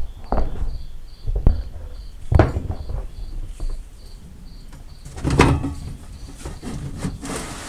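Irregular metal clunks and knocks, with a scrape near the end, as a cooling fan is worked loose and taken off a car's engine. Crickets chirp steadily behind it, about two to three chirps a second.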